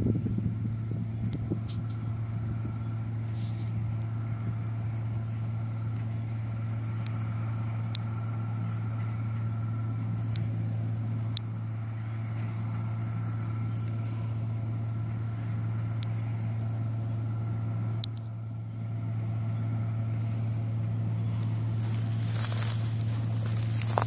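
John Deere 630 combine harvester's Perkins diesel engine running steadily under harvesting load, a constant low hum. Dry wheat stalks crackle and rustle near the end.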